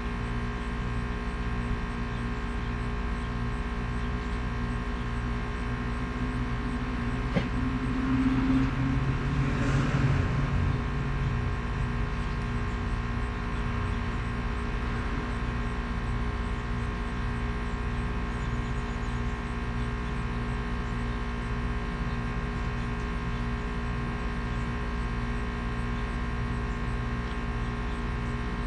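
Allturn electric plastic welding tool running with a steady electrical hum while mesh is fused into a kayak's plastic hull. A single click comes about seven seconds in, and a brief louder noise swells around ten seconds.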